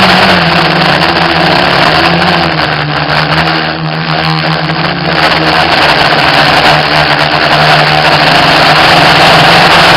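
FPV quadcopter's electric motors and propellers whirring, a steady low hum wavering slightly in pitch with the throttle over a dense rushing hiss. It eases off for a moment around four seconds in, then comes back up.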